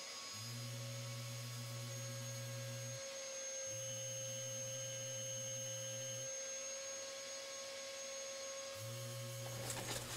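Mirka Deros brushless electric random orbital sander running at low speed with a 180-grit disc, sanding body filler on a car's rear wing: a steady thin whine, with a deeper hum that cuts in and out in stretches of two to three seconds. The sander stops shortly before the end.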